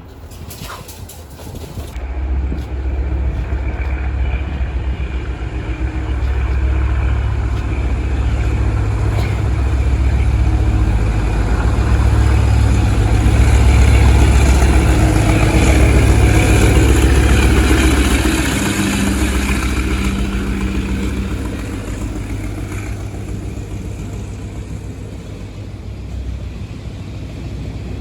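Diesel locomotive passing close by: a deep engine rumble comes in sharply about two seconds in, swells to its loudest around the middle, and falls off toward the end.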